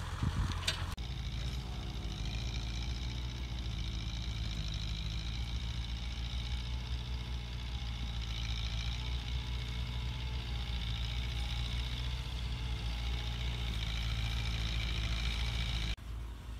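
Kubota tractor's diesel engine running steadily under load as it pulls a plough through the soil. The sound changes abruptly about a second in and again near the end.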